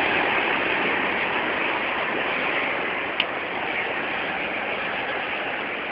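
Go-karts running on a track: a steady, noisy drone with one short click about three seconds in.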